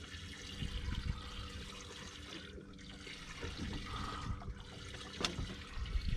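Water sloshing and lapping against a boat's hull, uneven and washing, over a faint steady hum, with one sharp click about five seconds in.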